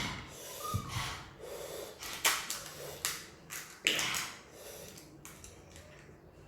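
Close-miked eating sounds: noodles slurped in several short, sharp bursts, with breathing between them.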